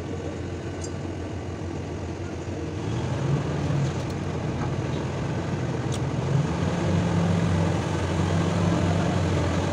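Heavy machinery engine running steadily with a low hum. From about three seconds in, it gets a little louder and a second, higher hum comes and goes.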